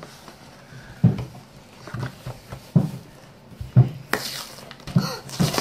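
Cardboard-and-clear-plastic toy box being handled and opened on a table: a series of scattered knocks and bumps, with a brief, sharper rustle about four seconds in.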